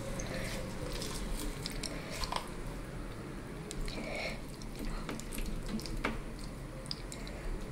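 Close-miked eating sounds: wet chewing and squishing with scattered mouth clicks.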